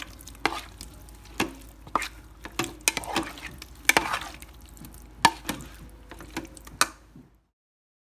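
Spoon stirring shrimp in an Instant Pot's inner pot, with irregular knocks and scrapes against the pot over a faint sizzle of the shrimp cooking. The sound cuts off abruptly about seven seconds in.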